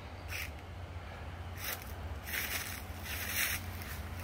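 Footsteps crunching through dry fallen leaves, four or so irregular steps, over a steady low hum.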